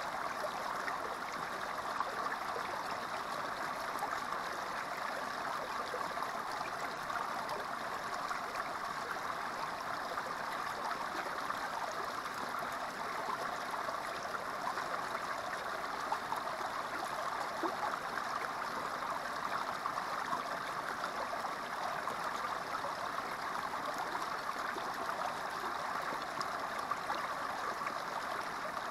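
Small creek water spilling over a low rock ledge into a shallow pool: a steady, even splashing and trickling.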